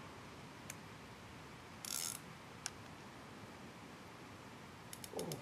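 Fishing reel's drag ticking as a hooked carp pulls line from the spool. A few faint clicks and a short hiss come about two seconds in, then a rapid run of ticks starts near the end.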